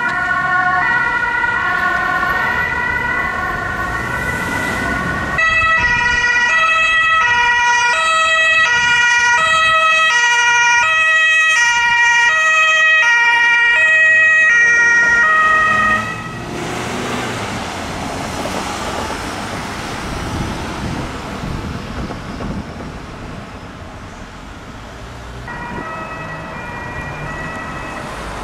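German emergency-vehicle two-tone sirens (Martinshorn) alternating between a high and a low note. A louder siren takes over about five seconds in and stops abruptly about sixteen seconds in, leaving street traffic noise. Another two-tone siren starts faintly near the end.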